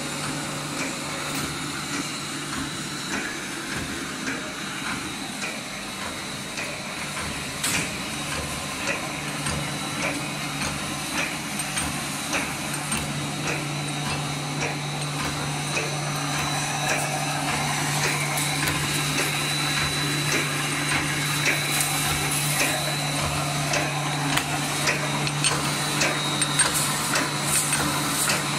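Roll welded wire mesh machine (DP-DNW-3) running in production: a steady motor hum under a stream of repeated clacking strokes as the welding head presses and welds each cross wire onto the line wires. The hum grows stronger about halfway through.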